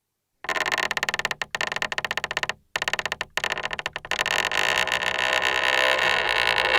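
Creaking picked up directly through a Schaller Oyster 723 piezo contact microphone: a rapid stick-slip chatter of tightly packed pulses that starts about half a second in, breaks off briefly a few times, then runs together into a steadier creak that grows louder toward the end.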